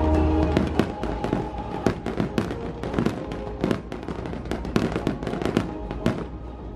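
A fireworks display in a rapid barrage: many sharp bangs and crackles a second. Show music plays underneath, its held chord strongest in the first second.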